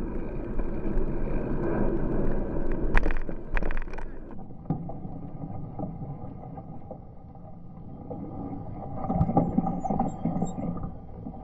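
Wind rushing over a handlebar-mounted bike camera's microphone as a bicycle rides at speed, with a few knocks from bumps; it drops away about four and a half seconds in as the bike slows. Near the end the voices of a crowd close around come up.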